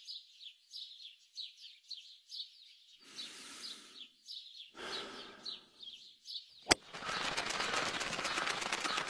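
Small birds chirping over and over in short falling notes. About two-thirds of the way in comes a single sharp crack, a golf driver striking the ball off the tee. A dense rush of noise follows it.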